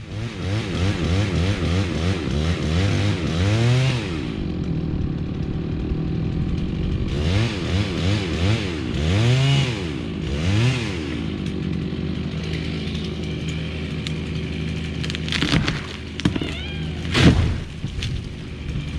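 Chainsaw revving up and down while cutting, settling to a steady idle between cuts. Near the end, sharp cracks and a heavy thud as the cut section of locust trunk breaks free and lands.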